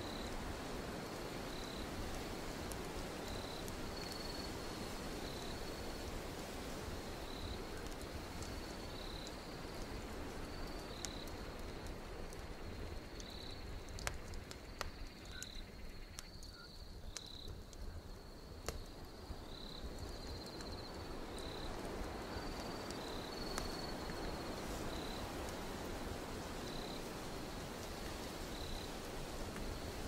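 Wood fire crackling in a stove's firebox, with occasional sharp pops, over a steady wind hiss and a cricket chirping at an even pace about every second and a half.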